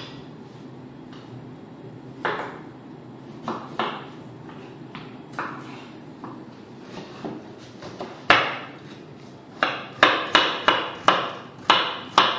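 Kitchen knife cutting carrots on a wooden cutting board. A few scattered knocks of the blade on the board, then from about eight seconds in a quick run of chops, about three a second.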